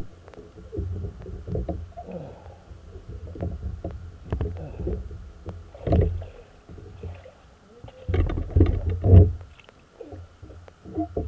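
Irregular muffled bumps and low rumbling: water and handling noise on a camera held underwater, with the heaviest knocks about six seconds in and again near the end. A faint steady high hum lies beneath.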